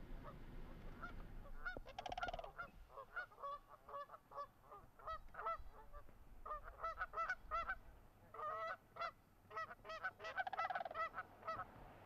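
A flock of Canada geese honking: many short calls in quick, overlapping series, with brief lulls between bouts.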